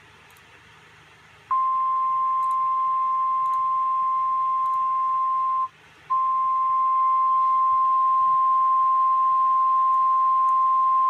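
Emergency weather alert tone: a single steady tone just above 1 kHz, the warning alarm that signals a severe weather warning is about to be read. It starts about a second and a half in, cuts out briefly about halfway through, then resumes, over a faint hiss.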